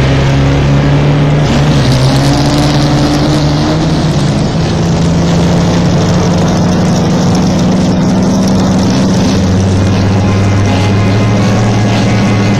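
Off-road desert race vehicle engine running hard at a steady pitch, loud, with a lower engine tone joining about nine and a half seconds in.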